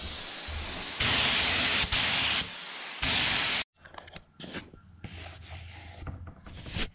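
Pressurized spray hissing in three short bursts about a second apart over a fainter steady hiss. The hiss cuts off suddenly, and faint clicks and knocks follow.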